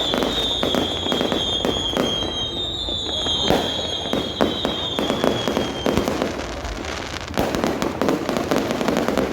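Fireworks going off: a dense run of bangs and crackles, with two long high whistles that slide slowly down in pitch through the first half. Crowd voices murmur underneath.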